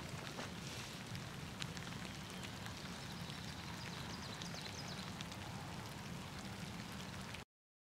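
Steady rain falling, an even hiss with scattered fine drop ticks. The sound cuts off suddenly near the end.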